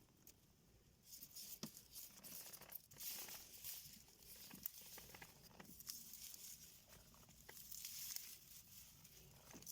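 Faint rustling and crinkling with scattered small clicks, starting about a second in.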